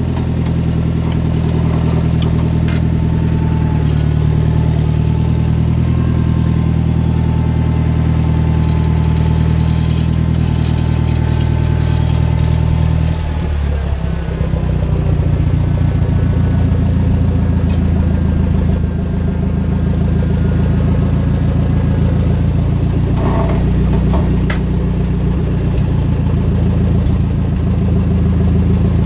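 Small farm tractor's engine running while driving, with its transmission whining. The engine note dips and changes about halfway through, then settles back to a steady run.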